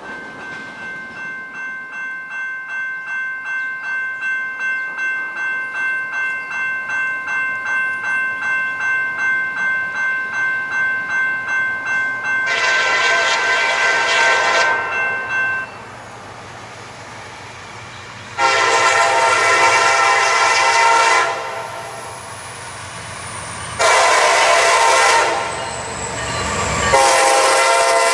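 Norfolk Southern SD60E diesel freight locomotive approaching: its bell rings steadily at about three strokes a second, growing louder. Then its air horn sounds the grade-crossing signal, long, long, short, long, and the last blast drops in pitch as the locomotive passes. A low diesel engine rumble runs under the horn.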